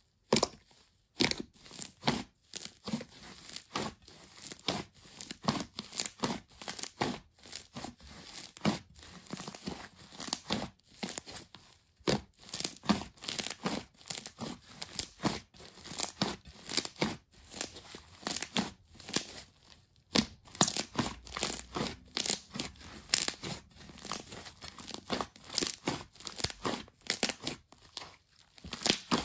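Thick slime being stretched, squeezed and pulled apart by hand, giving off a dense run of sticky crackles and pops, several every second, as the slime tears and its air pockets burst.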